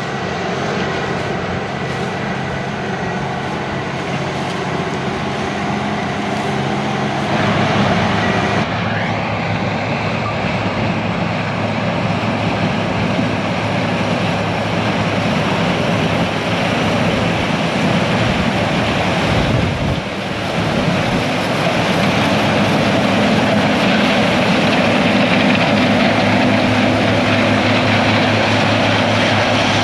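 Diesel engines of heavy harvest machinery running steadily, with the engine note changing abruptly about 8 seconds and again about 20 seconds in.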